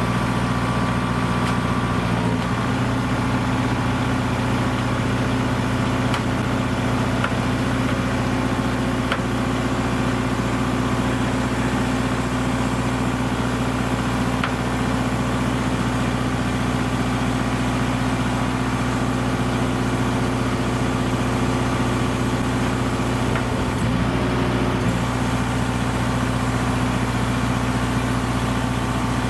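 Semi truck's diesel engine running steadily while the side-loader trailer's hydraulic arms lift a shipping container.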